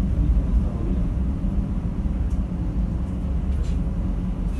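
Strong wind buffeting the microphone over a rough, storm-driven sea: a steady, heavy low rumble.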